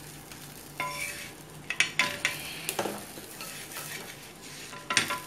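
Flat spatula scraping and knocking against an iron dosa griddle a few times as an egg paratha is pressed and lifted to be flipped, over a faint steady sizzle of the paratha frying in oil.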